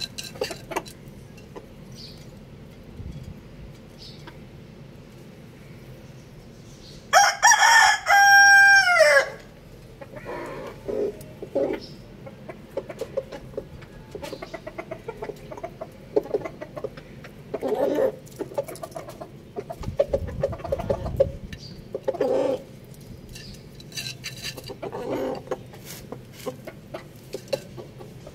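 A rooster crows once, about seven seconds in: a loud crow of about two seconds that ends in a falling note. Short clucking calls from the fowl come and go before and after it.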